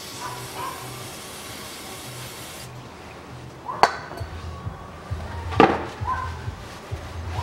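A steady hiss that cuts off about two and a half seconds in, then sharp metallic knocks of hand tools, two of them standing out about two seconds apart, the second the louder.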